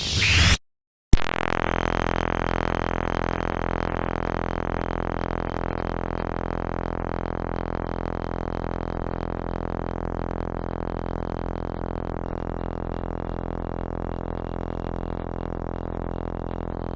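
Synthesizer-made lightsaber hum: a steady low buzz full of evenly spaced overtones. It cuts in with a click about a second in, after a short rising swell and a moment of silence, then holds steady.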